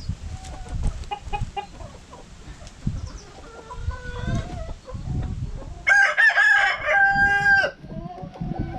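Rooster crowing once, starting about six seconds in: one loud call lasting nearly two seconds. Softer short clucks and calls from hens come before it.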